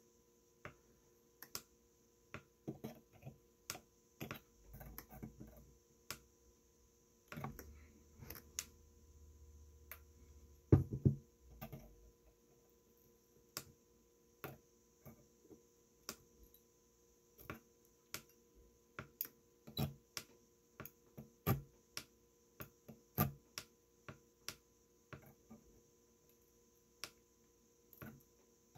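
Irregular small clicks and taps, one or two a second, with one louder knock about eleven seconds in: ceramic tweezers working fused clapton coils on a rebuildable tank atomizer's deck while the vape mod's fire button is pressed, dry-firing the coils to make them glow evenly.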